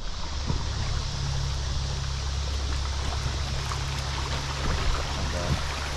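Steady rush of fast river water running over a riffle around an inflatable kayak, with a low, even rumble underneath.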